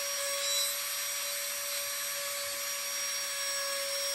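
Micro grinder spinning a burr with a steady, even whine, its tip held against the belly of a carved wooden chickadee to bore the holes for the legs.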